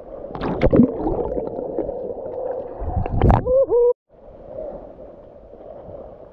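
Seawater sloshing and gurgling around an action camera held at the waterline, muffled as the lens dips in and out of the water. A burst of splashing comes about half a second in, and a short wavering pitched sound a little after three seconds, before the sound briefly drops out.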